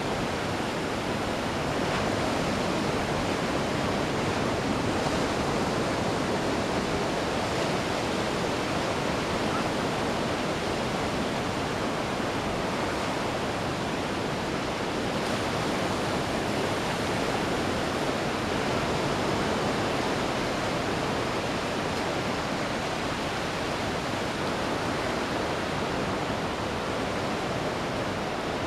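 Ocean surf: waves breaking and washing up the beach in a continuous rushing wash that swells and eases every few seconds.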